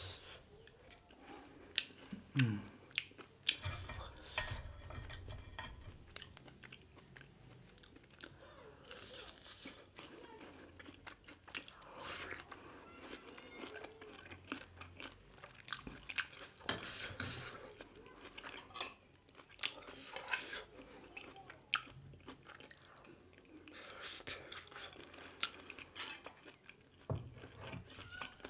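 Close-miked chewing and biting of grilled pork sekuwa and rice, with irregular short clicks and crunches throughout.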